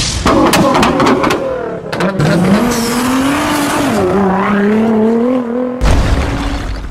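Car engine revving sound effect in an intro: a cluster of sharp clicks in the first second, then an engine note that rises and dips, then a loud low boom about six seconds in.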